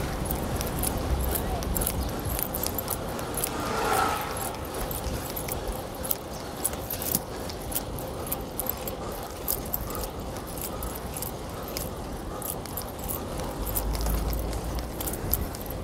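Light, irregular metallic rattling and clicking over steady road and wind noise while riding a fixed-gear bicycle through city streets, with a brief louder swell about four seconds in.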